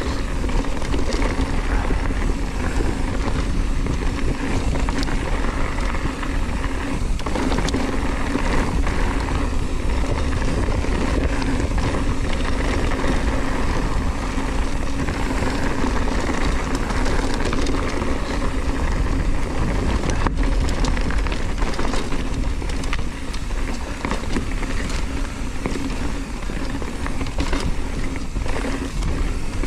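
Hardtail mountain bike rolling fast down a dirt and gravel trail: a steady rush of knobby tyres on loose ground, with constant small rattles and clicks from the bike over the bumps.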